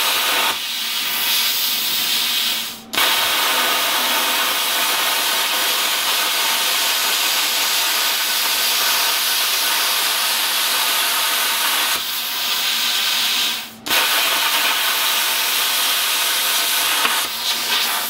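Hand-held air plasma cutter cutting through sheet metal. The cutting arc and air jet make a steady, harsh hiss, which stops abruptly twice, about three seconds in and again past the middle, and starts again at once.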